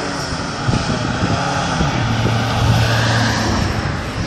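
Heavy truck's diesel engine running as the truck drives away, settling into a steady low drone partway through.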